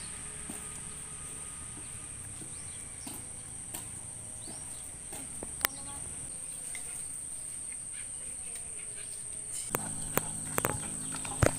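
Steady, high-pitched insect drone of crickets or cicadas, with a few sharp clicks scattered through it, the loudest near the end.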